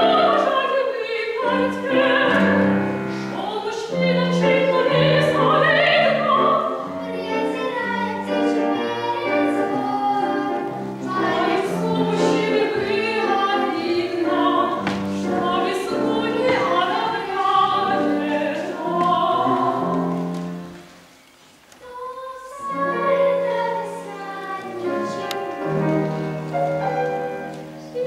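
A soprano and two young girls sing in an operatic style, accompanied on a grand piano. The music breaks off briefly about three-quarters of the way through.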